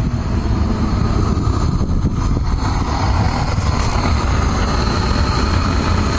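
Propane burner firing into a brick raku kiln through its burner port: a steady, low-pitched roar of gas and flame.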